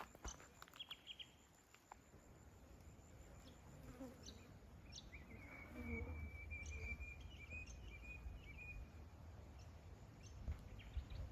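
Faint, high-pitched insect buzz that holds one pitch for about four seconds midway, over a low rumble and a few light ticks.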